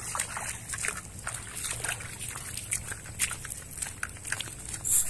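Footsteps squelching and splashing through wet mud and shallow water, a string of short irregular wet slaps with the loudest near the end.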